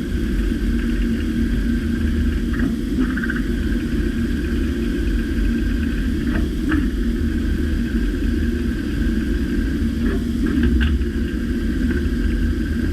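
DMG MORI M1 three-axis CNC milling machine running a cut on a steel part: a steady low rumble with a steady whine over it, broken by a few short ticks.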